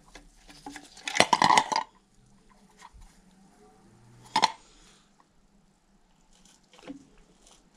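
Metal bicycle brake parts, a hydraulic disc brake caliper and its bolts, clattering against a stainless steel bowl: a quick burst of clinks about a second in, one sharp clink a few seconds later, and a few faint clicks near the end.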